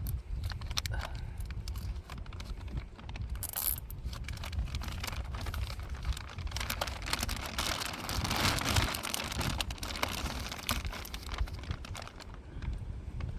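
Rustling and crinkling, with many small clicks and crackles over a low rumble, busiest about two-thirds of the way through.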